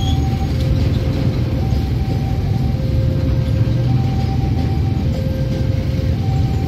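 Babaranjang coal train's gondola wagons rolling past: a steady, loud, low rumble of wheels on rails. Over it a two-tone level-crossing alarm alternates between a lower and a higher tone about once a second.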